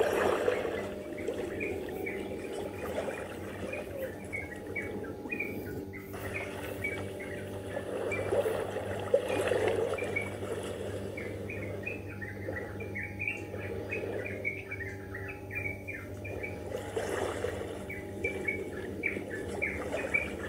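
Many small birds chirping in quick, short, high chirps, over a steady low hum.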